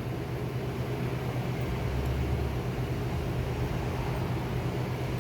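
Fiber laser welding equipment running during a weld on a rotating steel pipe: a steady low machine hum with constant hiss, and a deeper hum swelling about two seconds in.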